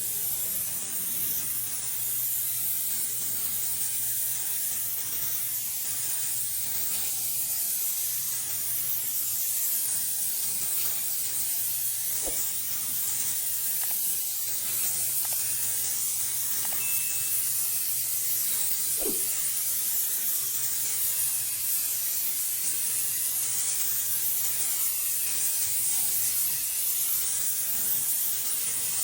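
Graco airless paint sprayer spraying a steady hiss of paint, with a steady low hum underneath.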